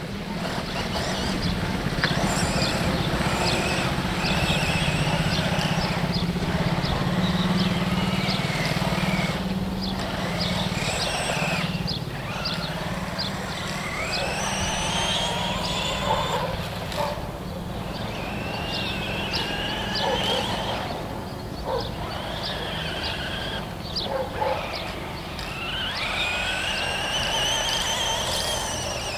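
WLtoys L959 RC buggy's electric motor whining, rising and falling in pitch in repeated bursts as the throttle is worked, with scattered clicks. A low engine drone runs under it for about the first twelve seconds.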